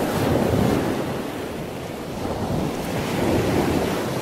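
Rushing noise from the intro's sound bed, swelling about half a second in and again about three and a half seconds in, easing between the swells.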